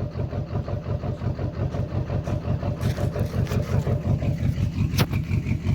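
Duramax LLY 6.6-litre V8 turbo-diesel engine idling with a pulsing beat several times a second, the sign of a misfire. A single sharp click sounds about five seconds in.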